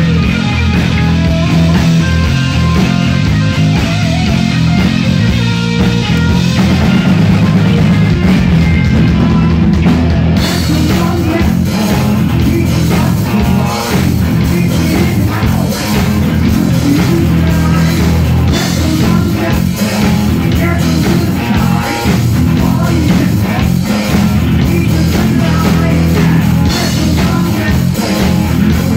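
Heavy metal band playing live at full volume: distorted electric guitar over a driving drum kit, as heard by a smartphone near the stage. The sound grows brighter about ten seconds in.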